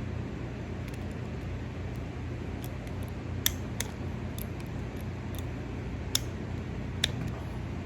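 A few sharp metal clicks from vise grips working the overtightened thumb-screw terminals of a horn tweeter, over a steady low hum. The screws are jammed so tight that they have cut through the wire.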